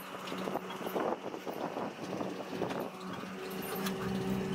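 Steady engine hum of a cable vehicle ferry under way, with rough wind-like noise over it. About three seconds in, the noise drops away and a smoother, steadier hum remains.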